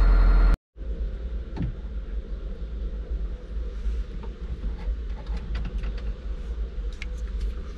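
Volvo EC55 excavator's diesel engine idling, cut off abruptly under a second in. Then a quieter, steady low hum with scattered light clicks and taps.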